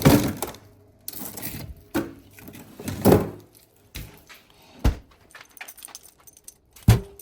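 Irregular household handling noises: rustling and clattering, with a few sharp knocks, the last two near the end.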